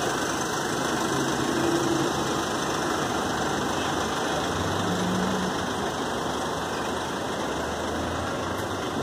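A vehicle engine idling steadily under a constant wash of noise.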